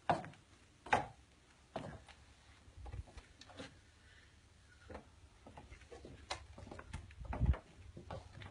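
Footsteps across a porch floor, sharp knocks about one a second, with a heavier low bump about 7.5 seconds in.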